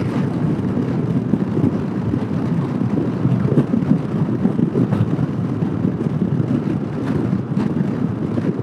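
Steady wind rush and road rumble of a 2015 Honda PCX150 scooter riding at highway speed, with no distinct engine note standing out.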